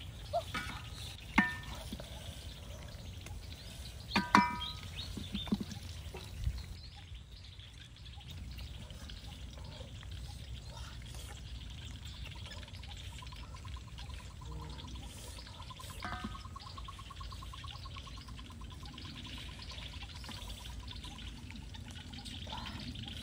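Metal spatula clinking against a wok several times in the first six seconds, each strike ringing briefly as fried bamboo shoots are lifted out. Afterwards a steady low background with a thin, rapid trill through the middle.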